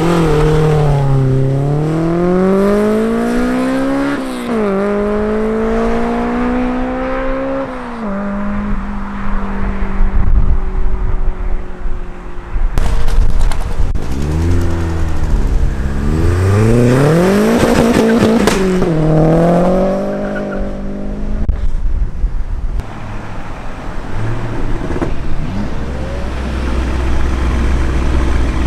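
Modified cars' engines accelerating hard away one after another, the pitch climbing and dropping with each gear change. A second car revs up and down around the middle, with a few sharp cracks.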